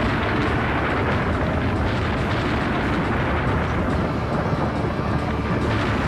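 Thunderstorm: rolling thunder rumbling over a steady, heavy downpour of rain.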